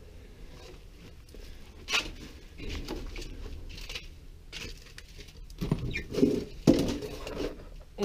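An old refrigerator being opened by hand: scuffing and rustling as it is approached, then its door pulled open with a cluster of knocks and rattles a couple of seconds before the end.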